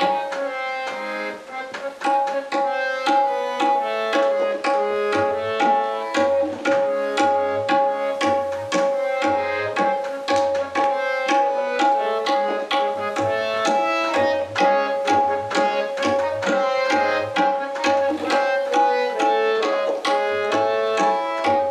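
Harmonium and tabla playing together: the harmonium carries a melody over a held note while the tabla keeps up a fast run of crisp strokes, with deep bass strokes from the larger drum now and then.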